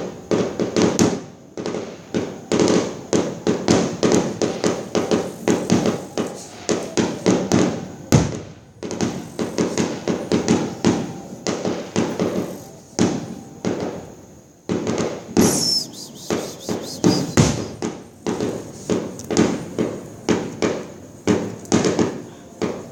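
Fireworks going off in a long, rapid barrage of bangs, several a second, with a couple of brief lulls.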